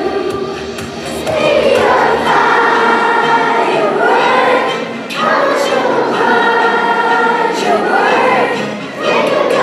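Children's choir singing together, in phrases of about four seconds each with short dips between them.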